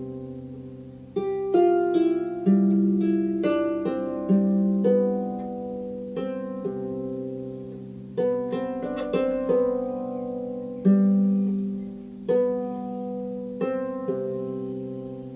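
Solo harp playing slowly: single plucked notes and broken chords that ring on and overlap as they fade.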